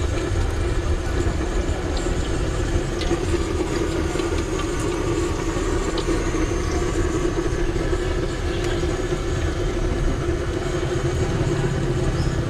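A steady low mechanical drone with a hum, like a motor running, with a few light clicks over it.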